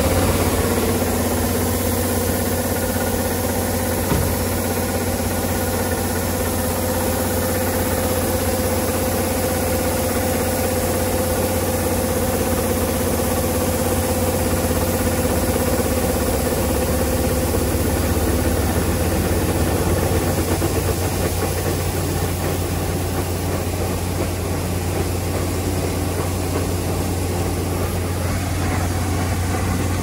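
Kubota ER470 combine harvester's diesel engine running steadily while its unloading auger pours threshed rice into a grain bag; a steady low drone, with a higher whine that fades away a little over halfway through.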